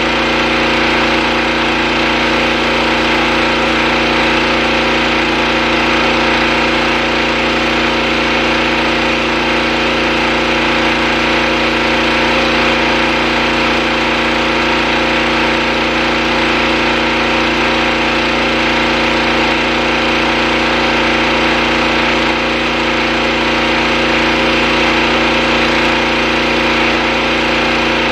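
Pressure washer engine running at a steady speed while a surface cleaner is worked over a concrete driveway.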